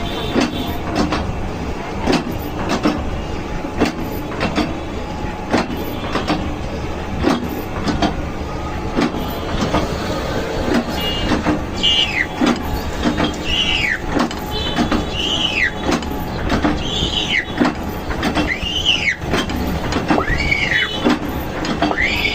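A woodworking machine running with a steady rumble and a regular knock about every second and a half. From about halfway on, a squeal that rises and falls in pitch comes with each cycle.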